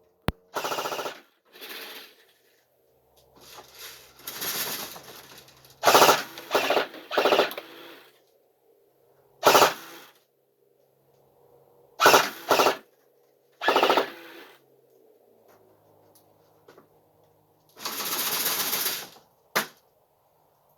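Cybergun A&K M249 Mk1 airsoft electric machine gun firing about ten short full-auto bursts, each from half a second to a second and a half long, with pauses between them.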